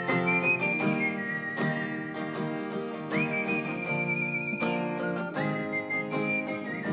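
Melodic human whistling over plucked acoustic guitar: long held notes with a slight vibrato, stepping up to a higher note about three seconds in and back down near the end.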